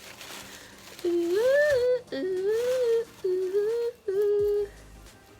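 A woman humming a tune in four short phrases of held and gliding notes, starting about a second in.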